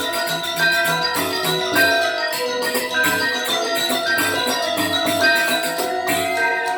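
Balinese gamelan ensemble playing Legong dance accompaniment: bronze metallophones ringing in quick, busy patterns over a steady low repeating pulse.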